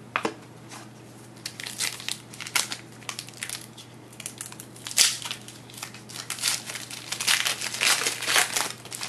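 Wrapper of an Upper Deck Goodwin Champions trading-card pack being torn open and crumpled by hand: irregular crinkling crackles, loudest about five seconds in and in a dense run near the end.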